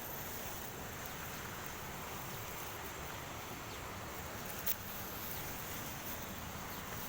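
Steady rushing of a river, with a single sharp click about two-thirds of the way through.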